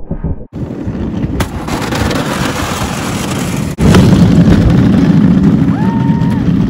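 Go-cart moving: a steady, noisy rumble of the ride that jumps louder after an abrupt break about four seconds in.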